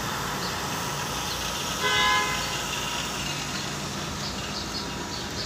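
Steady street traffic noise, with a car horn sounding once, briefly, about two seconds in.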